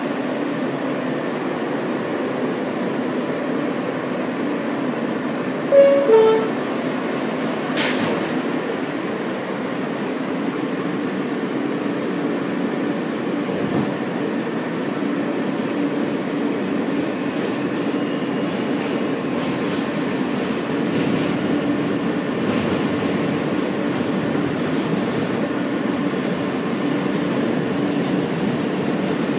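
Interior of an R160 subway car running on elevated track: a steady hum from the motors with the rumble of wheels on rail. About six seconds in there is a brief, loud two-note tone, higher then lower, and a sharp click follows a couple of seconds later.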